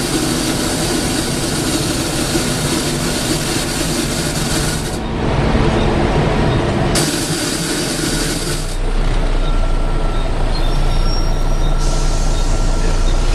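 Interior of a Volvo B7TL double-decker bus on the move: engine and road rumble with a loud hiss on top. The hiss cuts out about five seconds in, returns briefly, drops out again, and comes back near the end.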